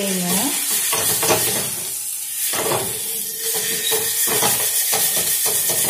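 Half an onion being rubbed over coarse white grains on a heated iron dosa tawa: repeated scraping strokes, a few a second, over a steady sizzle.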